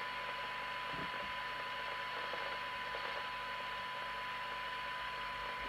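A DNT M40 FM CB radio's speaker plays a signal generator's steady test tone in the middle of receiver hiss. This is a weak 0.3 microvolt signal, used while the receive coils are peaked for best SINAD.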